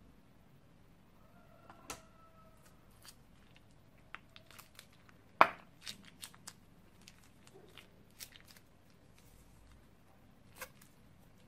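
Scissors snip the tip off a plastic piping bag about two seconds in, then scattered light clicks and crinkles of the bag as slime is squeezed out of it, with one sharp click, the loudest sound, about halfway through.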